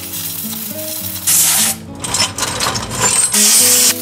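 Three short blasts of compressed air hissing over freshly rinsed bicycle parts to dry them, over background music.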